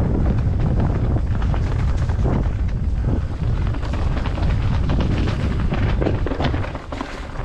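Wind buffeting the microphone as it moves fast along a trail, a constant low rumble, with many scattered knocks and rattles over it.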